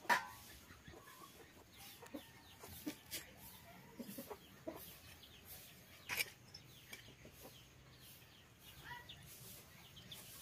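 Chickens clucking faintly now and then, with scattered light knocks and clicks from herbs and vegetables being cut against a blade fixed on a wooden board.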